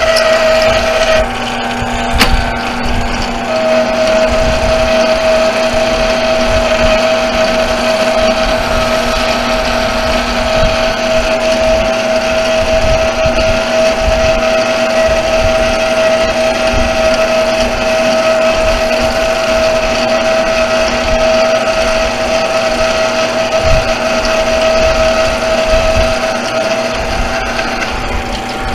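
An 8×12 benchtop mini metal lathe running under cut as a 3/8-inch boring bar machines a brake rotor hub, its motor and gears making a steady whine over the cutting noise. The whine drops away near the end.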